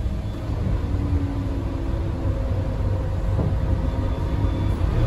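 Scania K320UB hybrid bus heard from inside the cabin: a steady low drivetrain rumble, with a faint thin tone above it through the middle.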